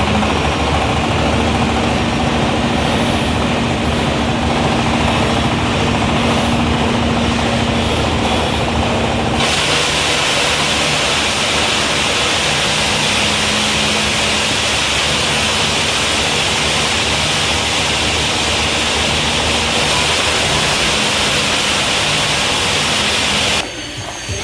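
Tyre shredder machine running, a loud steady mechanical noise over a constant low hum. About nine seconds in the sound abruptly turns brighter and hissier, and it drops off sharply just before the end.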